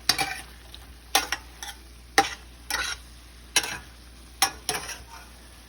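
A utensil stirring sautéed bitter melon and vegetables in a pan, scraping and clinking against it about once a second, over a faint sizzle.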